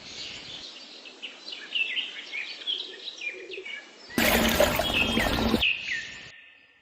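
Small birds chirping outdoors: many short, quick chirps over a faint hiss. About four seconds in, a loud rushing noise cuts in for a second and a half, then fades away.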